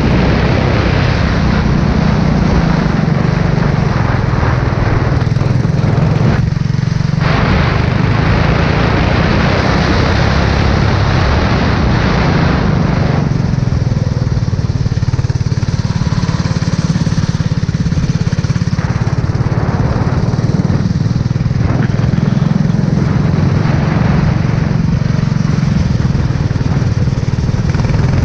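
Formula 4 race car engine running continuously at speed, with a steady hiss over it.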